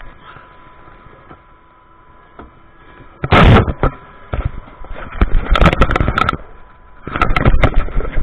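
Handling noise on a chest-mounted action camera as the wearer opens a car door and climbs out: loud, irregular rubbing and knocking, with the sharpest knock about three and a half seconds in.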